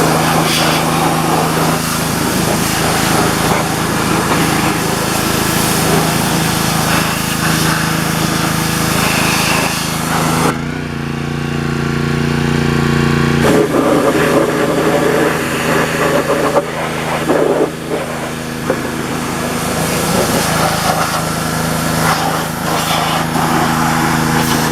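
Gas pressure washer's small engine running steadily while its wand sprays water onto a riding lawn mower. The spray hiss stops about ten seconds in and comes back about three seconds later, while the engine keeps running.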